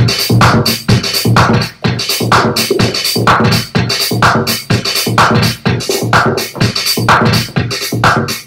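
Electronic house/techno music mixed from vinyl on DJ turntables, with a steady four-on-the-floor beat of about two kicks a second and repeating mid-range synth stabs.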